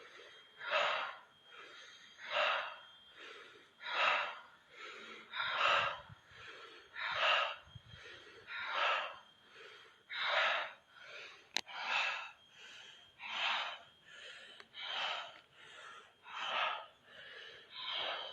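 Deep, forceful rhythmic breathing in a breathwork round, a loud breath about every second and a half with softer breaths between.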